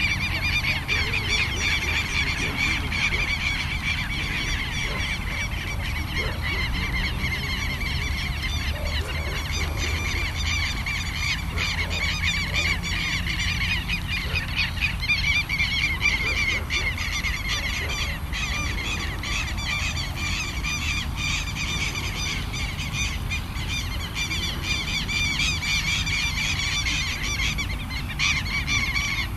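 Many birds calling at once in a continuous, chattering chorus, with a low rumble of wind on the microphone underneath.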